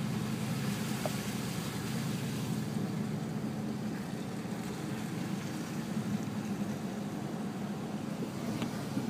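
Steady road noise inside a moving car: an even low hum of engine and tyres.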